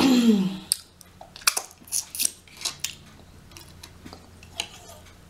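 Scattered light clicks and taps of utensils and fingers against a dish while a rotisserie chicken is pulled apart and picked off the bone. It opens with a brief voice sound falling in pitch.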